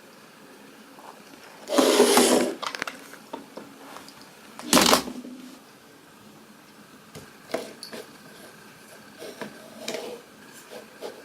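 Two short loud rustles, about two seconds and five seconds in, followed by a scattering of light clicks and knocks.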